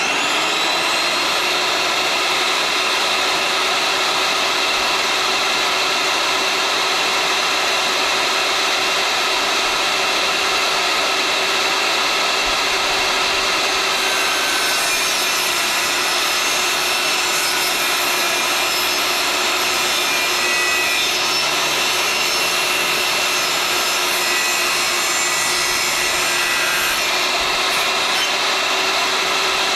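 Power saw running steadily and cutting thin cedar boards into squares, with a constant motor tone and a rougher, higher-pitched cutting noise from about halfway to near the end.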